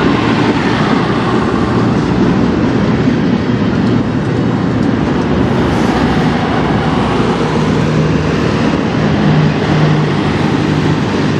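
Double-stack intermodal freight cars rolling past close by: steel wheels running on the rails with a steady, loud noise.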